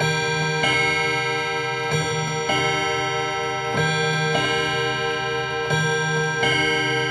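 1920s mantel clock striking on its gongs: four ringing two-note pairs (ding-dong), a new pair about every two seconds, each note left to ring on.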